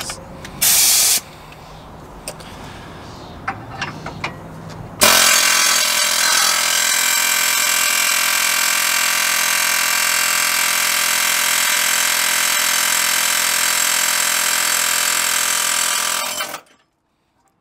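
Pneumatic air hammer running steadily for about eleven seconds, driving a ball joint into place, then cutting off suddenly. A brief burst from it comes about a second in, with a few metallic clicks before the long run.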